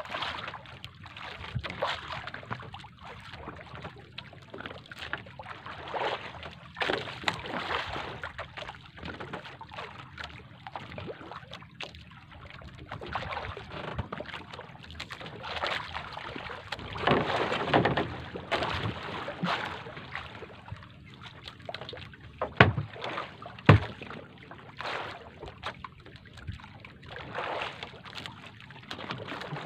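Sea water sloshing against a small wooden outrigger boat with wind buffeting the microphone, in uneven surges. Two sharp knocks about a second apart come a little after two-thirds of the way through.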